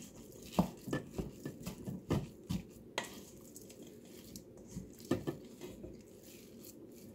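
Spatula stirring and mashing ground beef mixed with oatmeal in a stainless steel bowl: soft wet squishes and irregular light knocks of the spatula against the bowl, bunched in the first few seconds and again a little past the middle.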